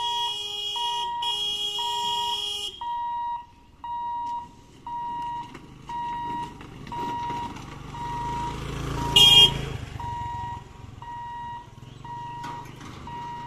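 Level-crossing warning alarm beeping steadily, about one and a half beeps a second, as the gate's boom barriers lower. A steady tone sounds alongside the beeps until about three seconds in, a motor vehicle rumbles past near the middle, and a short, loud burst stands out about nine seconds in.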